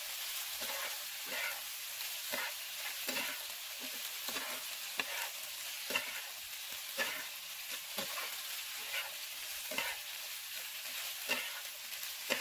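Spatula stirring and scraping penne with chopped vegetables around a frying pan, about one or two strokes a second, over a steady sizzle of frying.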